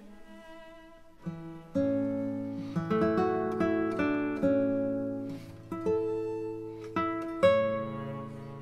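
Background music: a plucked guitar playing single notes and chords, each note starting sharply and fading, over low bass notes.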